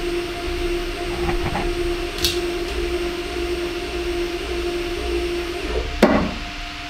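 Hybrid closed-loop stepper motor turning a CNC mill's Y-axis ball screw, with a steady whine. About six seconds in the whine breaks off with a short knock.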